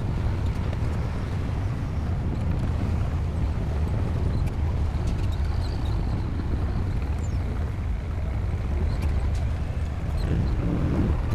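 Bulldozer's diesel engine running under load with a steady low drone, a few faint clicks on top.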